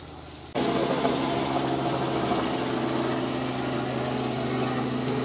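Safari vehicle's engine idling with a steady hum; it gets abruptly louder about half a second in.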